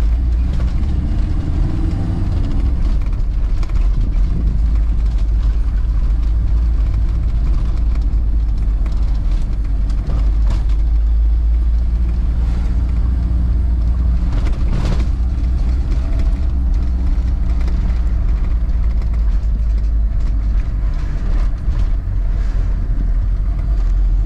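Car driving, heard from inside the cabin: a steady low engine and road rumble with occasional faint knocks from the road.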